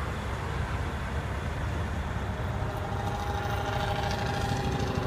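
Semi-truck diesel engine idling steadily, a continuous low engine sound with a faint higher hum joining about three seconds in.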